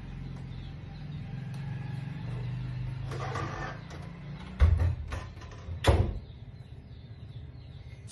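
Wooden door being handled: two heavy thumps about a second apart and a few light clicks, over a low steady hum.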